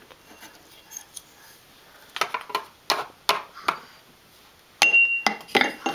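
Toy kitchenware being handled: a few light knocks and clicks of plastic pots, bowls and a utensil, then a sharper clink near the end that rings on briefly at one high pitch.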